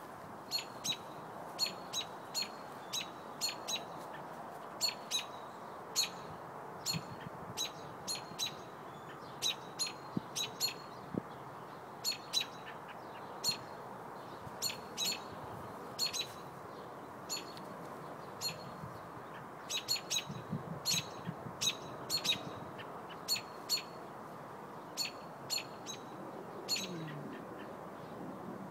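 American robin giving short, sharp alarm calls, repeated about one to two a second in uneven runs, as it does when disturbed near its nest.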